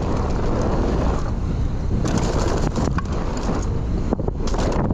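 Wind buffeting an action camera's microphone during a fast mountain-bike run, with tyres rolling over dry dirt. The bike clatters over bumps in short bursts about two seconds in and again near the end.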